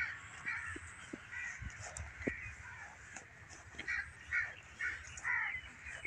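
Crows cawing: a string of short, harsh calls, more frequent in the second half, with a few soft knocks between them.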